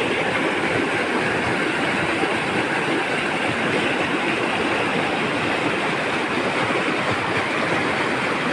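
River water rushing over rocks in small rapids, a steady loud rush of whitewater with no change.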